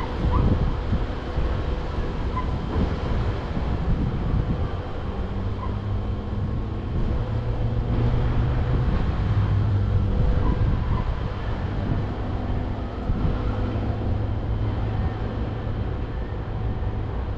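Train running through the station, a steady low rumble with a continuous hum.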